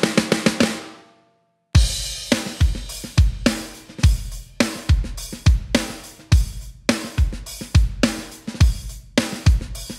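Sampled rock-funk drum kit played from a keyboard: a punchy kick drum, a cracking snare and hi-hat in a steady groove, about two strokes a second. It comes in after a brief silence about a second and a half in, as the ringing tail of the previous phrase dies away.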